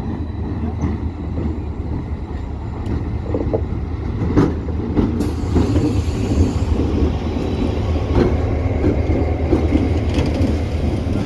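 Pakistan Railways GMU-30R diesel-electric locomotive drawing a passenger train into the platform and rolling past, its engine a steady low rumble under the noise of the wheels on the rails. A few sharp knocks come through around the middle.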